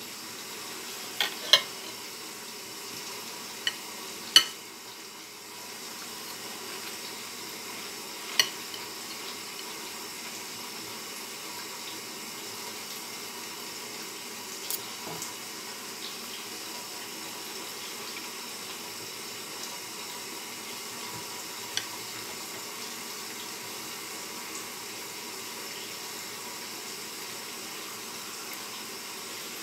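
Knife clicking against a ceramic plate while cooked beef is cut: a few sharp clicks in the first five seconds and another about eight seconds in, then a few fainter ones, over a steady background hiss.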